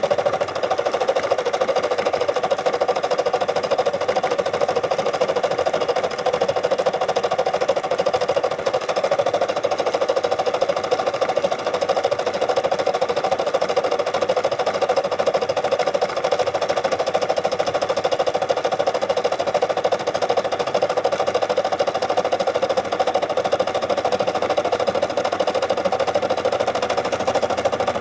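Brother SE600 computerized embroidery machine stitching steadily, its needle running at a fast, even pace as the embroidery unit moves the hoop.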